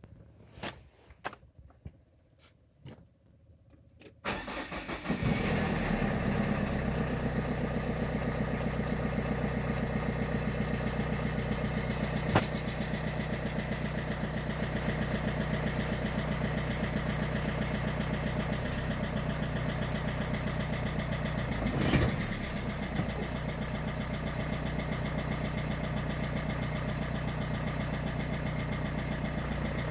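A few clicks, then about four seconds in a Renault K9K 1.5 dCi diesel cranks, starts from cold and settles into a steady idle with an even knocking rhythm. The knock is probably one Delphi injector, which knocks on a cold engine until the ECU corrects it. There is one sharp click near the middle and a short louder moment later on.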